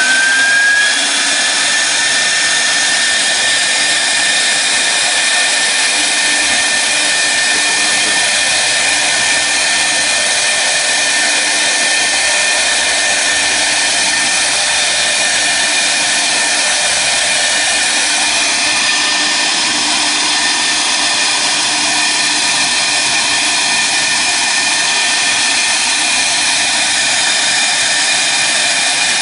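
CNC router spindle running at speed while its bit cuts out shapes in a clear plastic sheet. It finishes spinning up about a second in, then holds a steady high whine over the hiss of the cut.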